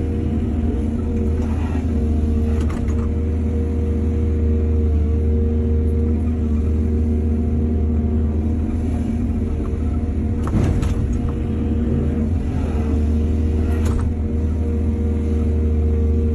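Excavator's diesel engine running steadily under load, with a few sharp metallic clanks about 3, 11 and 14 seconds in.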